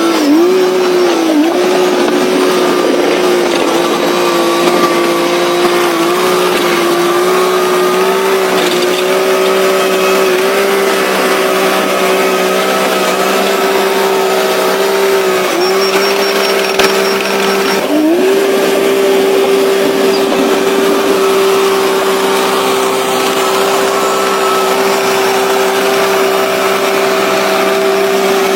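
Heavy earthmoving machine running steadily with a high, even whine. Its pitch sags briefly a few times as it takes load.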